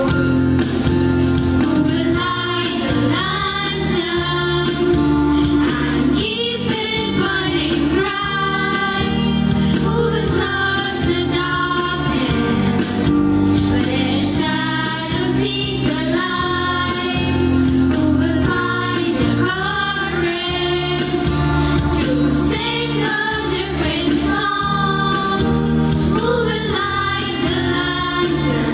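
Choir of schoolgirls singing a devotional song through microphones, with instrumental accompaniment under the voices.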